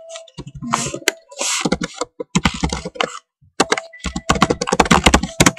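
Typing on a computer keyboard: irregular runs of quick key clicks, with a low voice sound mixed in.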